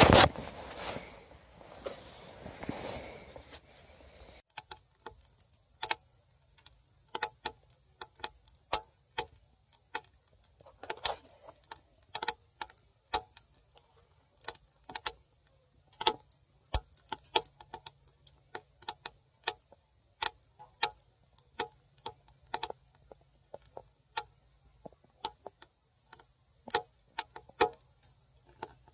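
Nylon sleeping bag rustling briefly at the start, then firewood crackling and popping as it burns in a small titanium camp stove with its door open: irregular sharp snaps, a few each second.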